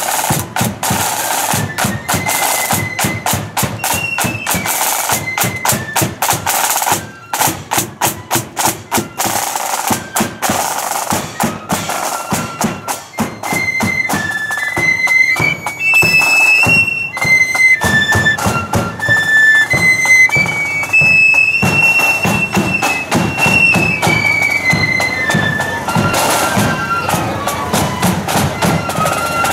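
Marching flute band playing a tune on flutes over a steady march beat on snare and bass drums. The drums are loudest in the first half, and the high flute melody comes through strongly from about halfway.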